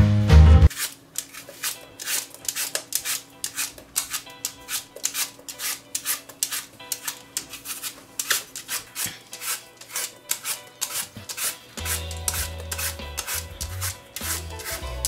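Quick, repeated scraping strokes of a peeler shaving the skin off a raw apple, several strokes a second. Low background music with a beat comes in about twelve seconds in.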